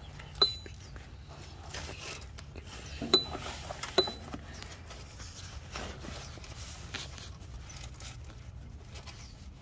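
Hands working at an oxygen sensor's wiring connector and its locking clip on a car's underside: soft rustling and handling noise, with three sharp clicks that ring briefly, about half a second in, at about three seconds and at four seconds.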